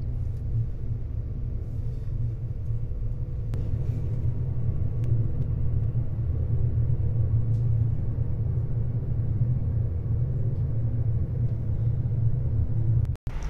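Steady low rumble of a ship's running machinery, with a faint steady hum over it and a brief dropout near the end.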